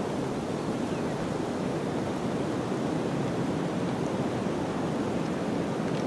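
Steady, even rushing noise of a rainforest ambience recording, with no distinct events.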